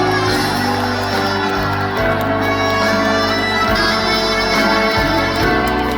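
Instrumental backing of a trot song over the stage sound system: a held, wind-instrument-like melody line over the band, between sung lines.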